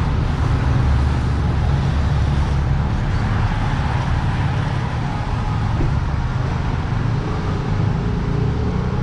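Street traffic: cars and motorbikes passing on the road, a steady low rumble with an even hiss of tyres and engines.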